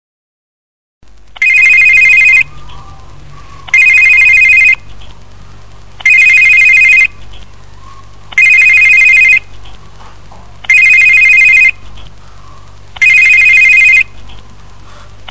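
Telephone ringing with an electronic two-tone trill: six rings, each about a second long and a little over two seconds apart, starting after about a second of silence. A faint steady hum lies between the rings.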